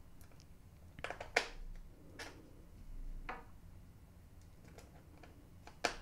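A Torx T5 screwdriver and its tiny screws clicking and tapping against the Dell XPS 13's aluminium back cover as the cover screws are set and driven back in. A handful of sharp little clicks, spread out, the loudest about a second and a half in and just before the end.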